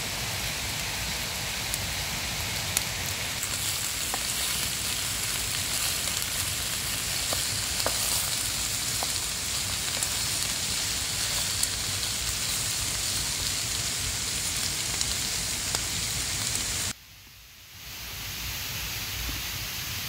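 Food sizzling and frying in a pan, a steady hiss with small crackles; it cuts out suddenly about three-quarters through and resumes a little quieter a second later.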